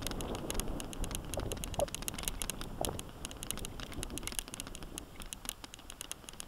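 Mountain bike rolling along a dirt single-track: low rumble of tyres and wind on the microphone, with rapid clicking and rattling from the bike over the bumps. A few brief rising squeaks come in about one and a half to three seconds in.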